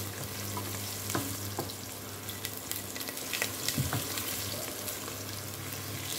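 Onions sizzling in hot oil in a pot, browned almost to burning, with scattered clicks and scrapes as they are stirred.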